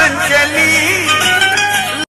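Background song playing: a wavering melody line over steady instrumental backing.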